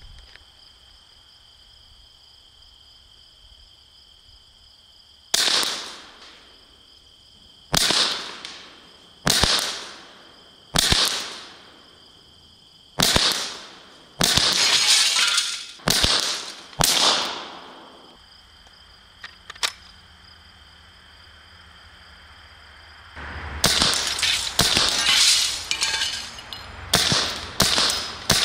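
Sharp cracks of a Pepperball VKS compressed-air launcher firing Grimburg JUL glass-breaker rounds and the rounds smashing into a storm window: about eight single shots a second or two apart, each trailing off, then a rapid string of shots near the end. Crickets chirp steadily under the first shots.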